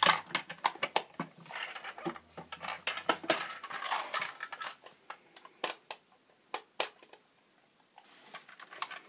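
Small plastic toy pieces being handled: a run of light clicks and clatters, with a quiet pause of about a second near the end.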